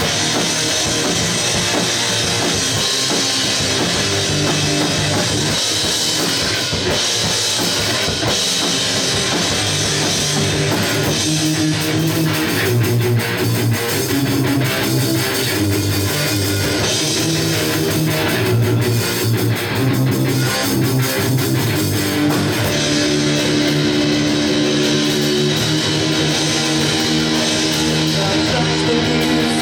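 Rock band playing live, an instrumental passage between sung choruses: electric guitar, bass and drum kit, with heavier drumming in the middle.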